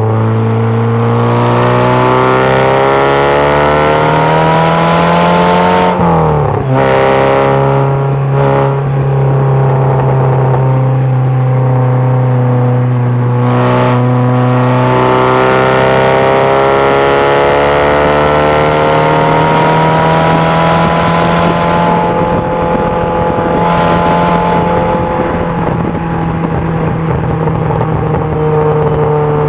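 Ford 2.0 Zetec four-cylinder engine in an MG Midget driven hard on track: the engine note climbs, drops sharply about six seconds in with a few short breaks at the gear changes, then rises slowly and holds through a long pull, with a haze of wind and road noise in the open cockpit.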